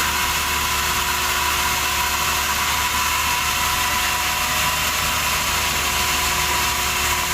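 Sawmill machinery running steadily: an even mechanical drone with a few constant tones, unchanging throughout.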